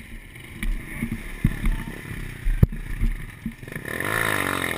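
Small motorcycle engines running, with one revving up and easing off about a second before the end, and a couple of sharp knocks earlier on.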